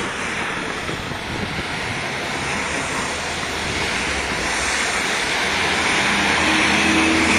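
Steady rushing outdoor background noise, growing slightly louder toward the end, with a faint hum coming in near the end.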